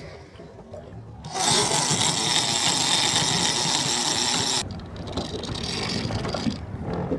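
Big-game conventional reel's drag paying out line with a loud high-pitched buzz, starting about a second and a half in and cutting off suddenly about three seconds later, over the low running of the boat's engine.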